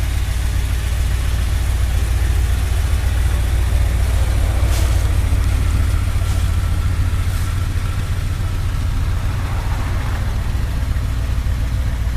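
V8 engine of a 1963 Ford Thunderbird idling steadily with a low, even rumble. A few faint short ticks occur about five to seven seconds in.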